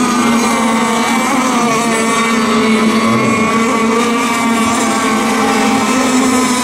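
Radio-controlled racing boats running flat out: a steady, high engine whine whose pitch wavers slightly as the boats go through the course.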